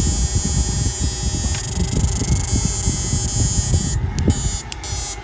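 Homemade 12 V electrofishing inverter with 24 MOSFETs and an E65 transformer running on test: a strong, rough electrical buzz with a high whine over it. About four seconds in the high whine cuts in and out in short gaps.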